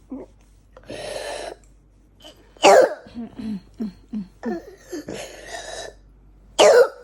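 A young child with pneumonia coughing: two loud, harsh coughs about four seconds apart, with short breathy gasps and low voiced sounds between them. It is a coughing fit of a child left short of breath, coughing to bring up phlegm.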